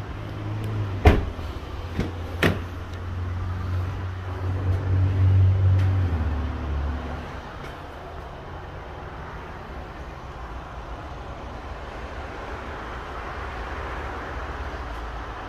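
Lexus RX350 car door shutting with a sharp thump about a second in, then another knock about a second and a half later. A low steady hum runs underneath for the first six or seven seconds, then stops.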